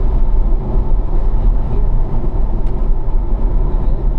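Car engine and road noise heard inside the cabin: a steady low rumble at part throttle in fourth gear, around 2,500 rpm, with the revs easing slightly as the car slows through a corner.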